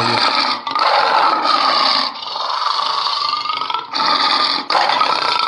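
Lion roaring and growling: a series of rough roars with short breaks between them, played as an added animal sound effect.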